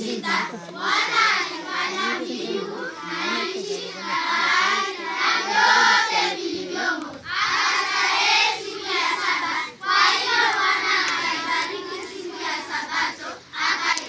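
A group of girls singing a song together in chorus, their voices carrying on with short breaks between phrases.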